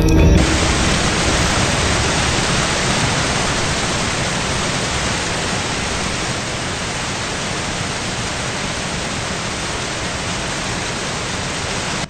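Steady hiss of noise from the piece's electronic sound score, taking over sharply from the music about half a second in. It eases slightly in level, then cuts off suddenly at the blackout.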